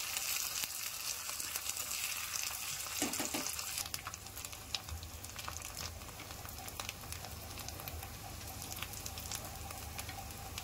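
Oil sizzling in a small kadai as dried red chillies, garlic and green leaves fry, stirred with a steel spoon, with short crackles and spoon scrapes over the hiss. The sizzle is louder for the first few seconds, then eases about four seconds in.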